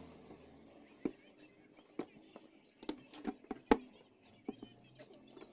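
Half a dozen sharp clicks and taps of a small metal tool and hands handling parts on a CRT TV's circuit board, spaced irregularly, the loudest a little past the middle.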